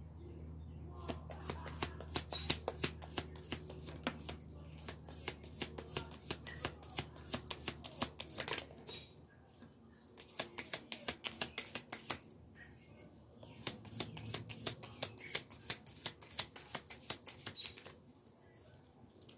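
A deck of cards being shuffled by hand: rapid runs of soft card flicks, with short pauses about nine and thirteen seconds in, stopping near the end.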